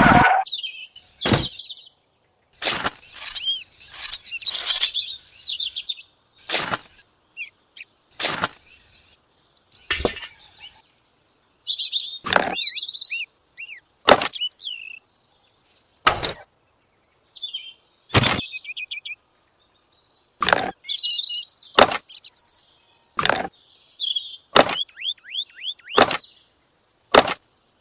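Small birds chirping, with quick falling trills, over a series of sharp taps or clicks that come every second or two, about seventeen in all.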